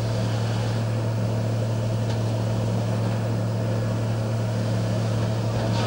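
A boat's engine running steadily: a constant low drone with an even hum.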